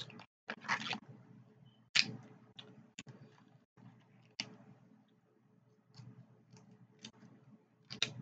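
Kitchen shears cutting cooked snow crab leg shells: irregular sharp clicks and short crunching cracks, the loudest about two seconds in.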